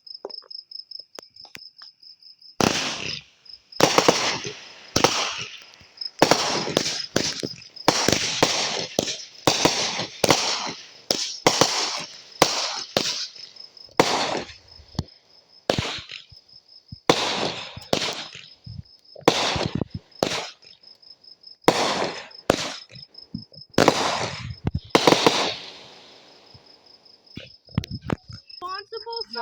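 A string of firework bangs, more than twenty in all at roughly one a second, each with a short fading crackle, starting about three seconds in and stopping a few seconds before the end. Crickets chirp steadily underneath throughout.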